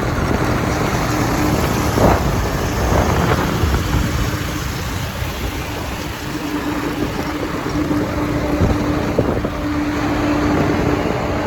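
KTM Duke 250 single-cylinder motorcycle under way, its engine running with a steady hum that comes and goes over a dense wash of road and wind noise.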